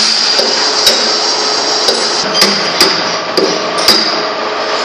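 A hand hammer striking the metal roller and spindle parts of a wood saw machine: about eight sharp blows at an uneven pace, with a steady high hiss underneath.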